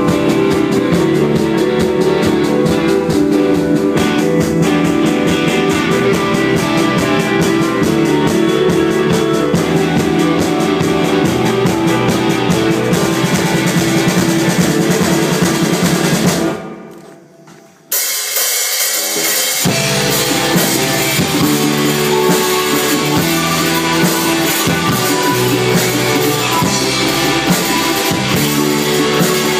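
A rock-style song with drum kit and guitar playing and no singing; about halfway through, the music drops out for about a second and a half, then comes back in.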